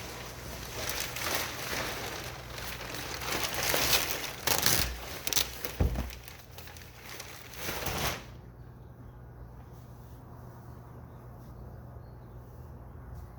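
Upholstery material being handled and pulled over a seat: rustling and crinkling with several louder crackles and a dull thump. It stops abruptly about eight seconds in, leaving only a faint low hum.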